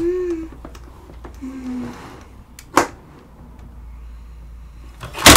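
Plastic toy pieces being handled: one sharp knock a little before the middle, then a loud burst of rapid clattering just before the end. Two short, soft hums from a voice come near the start.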